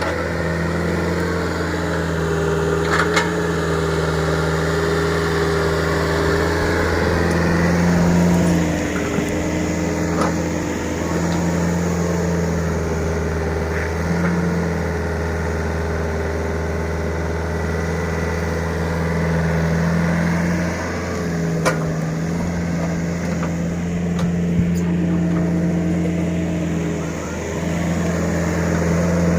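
Small excavator's engine running steadily, its pitch shifting slightly as the load changes, with a few short sharp knocks now and then.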